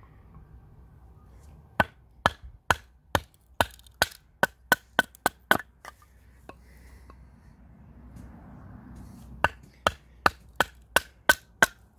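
Sharp knocks of a wooden baton striking the spine of a knife, driving the blade down through a block of oak to split it. A run of about nine strikes, a pause of a few seconds, then a faster run of strikes near the end.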